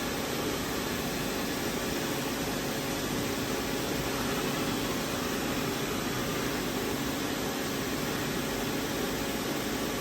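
Steady mechanical running noise of a CNC mill-turn machine tool, an even whirring hiss with no strikes or changes in pitch.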